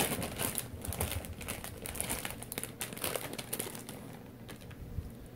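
Crinkling of a plastic soft-bait bag being handled and opened as a Yamamoto Yamafrog lure is pulled out, a dense crackle that thins out about four and a half seconds in.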